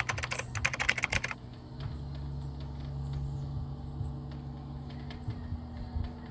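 A quick run of sharp clicks lasting about a second and a half, then a steady low hum with scattered faint ticks.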